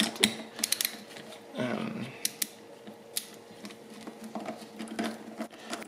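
Hand screwdriver with a socket bit undoing the small bolts of an EGR valve's plastic actuator cover: scattered, irregular clicks and ticks of the tool working on the bolts.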